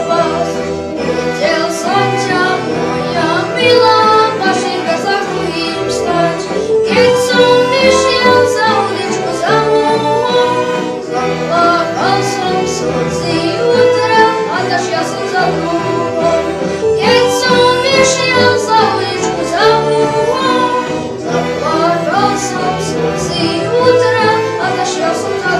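Slovak folk song played by a youth folk ensemble of violins, accordions, guitars, double bass, clarinet and recorders, the fiddles carrying a wavering melody over a steady accompaniment.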